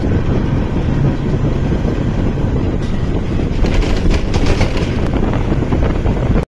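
Moving passenger train heard from a window seat: a steady low running rumble with wind buffeting the microphone, growing brighter and more rushing for a second or so past the middle as trackside trees sweep close by.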